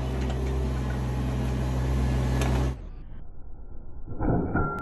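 Mini excavator's engine running steadily with a low hum, cut off abruptly a little under three seconds in. Background music with a regular beat starts near the end.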